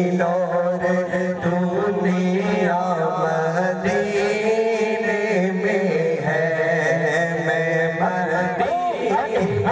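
Chanted singing: a voice whose pitch bends and slides over a steady, unbroken low drone.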